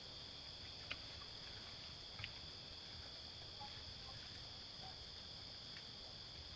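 Steady chorus of insects such as crickets, a continuous high-pitched trilling, with a couple of faint short clicks about one and two seconds in.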